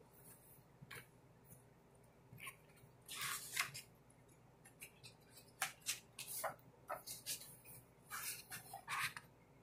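Faint rustling and handling of a large hardcover book's paper pages: a scattered string of short rustles and scrapes, loudest a little after three seconds in.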